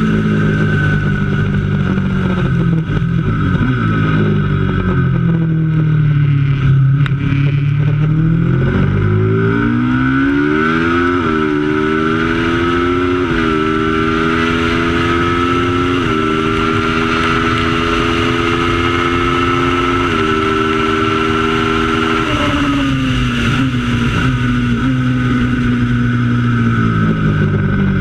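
Race motorcycle engine at racing speed. Its note falls off early on as it slows, then climbs again in steps through about four gear changes, and drops once more near the end as it backs off.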